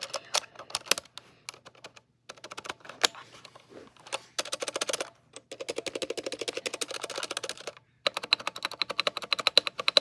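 Keys of a Womier WK61 mechanical keyboard being pressed and typed on, each keystroke a sharp click. The presses come in scattered bursts at first, then in two long runs of very rapid keystrokes through the middle and near the end, with short silent pauses between.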